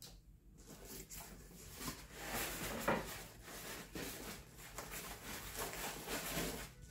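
Rustling, rubbing and scraping of packing being handled: hands working along a polystyrene foam insert in a cardboard box to pull items out, with scattered small knocks. It starts about a second in.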